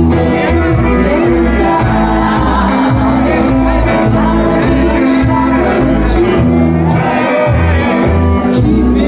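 Live acoustic band playing an upbeat tune on banjo, fiddle and double bass, the bass notes changing about twice a second, with a voice singing.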